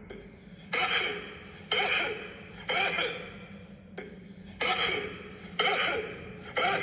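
A person's barking cough: about six harsh coughs, roughly one a second, each starting suddenly and fading fast, with a short pause in the middle.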